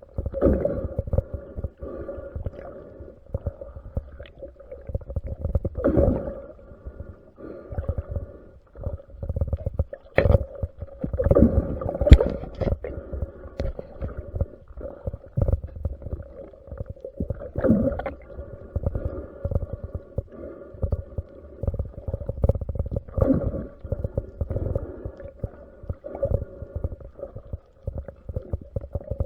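Muffled underwater sound of water moving around the camera, swelling in surges about every five to six seconds, with a steady hum and a few faint clicks.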